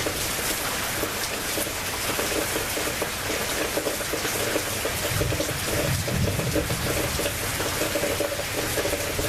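Heavy rain falling in a steady hiss, with water running and splashing. A low rumble swells about five seconds in.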